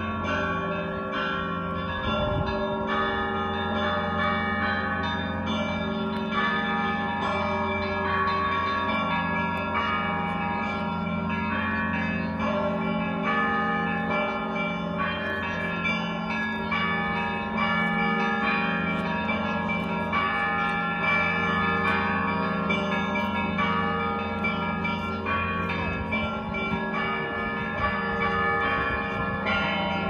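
Church bells ringing continuously: many bells struck in overlapping patterns, higher bells ringing over a low bell that sounds about once a second.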